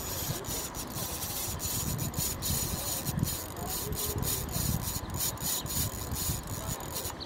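Spinning reel working under the strain of a hooked fish, giving a fast, irregular rasping clatter of clicks.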